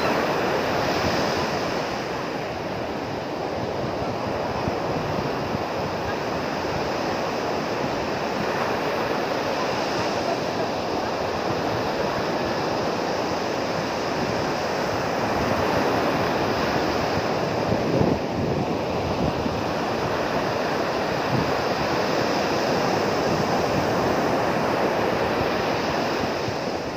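Strong ocean surf breaking and washing up the beach, a steady rush that swells and eases with each set of waves, with wind buffeting the microphone. A brief thump about two-thirds of the way through.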